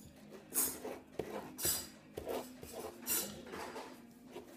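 A pen scribbling on paper in short quick strokes, three louder ones about a second apart.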